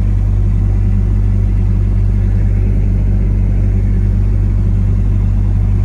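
Engine running steadily at constant speed, a low even drone with no change in pitch or level.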